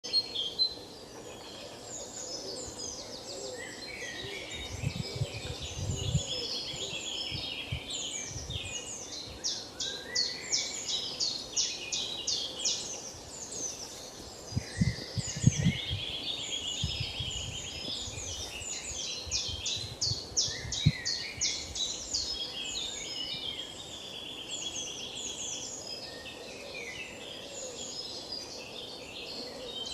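Many birds chirping and trilling at once, a dense chorus of short rapid notes and quick descending calls. Low thumps come in a few short bunches, about five, fifteen and twenty seconds in.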